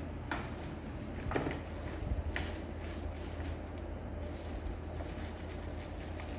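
Handling of plastic vacuum cleaner parts: a few short clicks and knocks in the first half, over a steady low hum.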